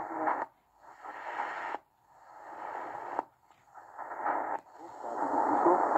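XHDATA D-808 portable radio being tuned across the AM medium-wave band a step at a time: muffled hiss and static from the speaker cut out briefly about four times as the frequency changes, then swell back. It steadies near the end as the radio settles on a frequency.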